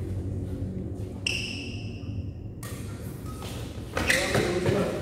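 Badminton being played on an indoor court: a sharp hit a little over a second in is followed by a steady high ringing tone lasting about a second, then a quick run of racket strikes on the shuttlecock and footwork on the court near the end.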